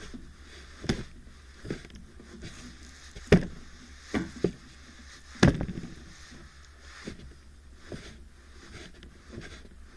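Irregular soft knocks and taps, about eight of them with two louder ones in the middle, as fingers press and rub a glass screen protector on a phone lying on a wooden table, over a low steady hum.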